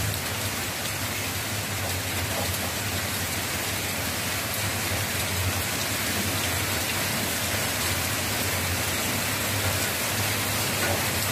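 Heavy rain pouring down steadily, a dense even downpour.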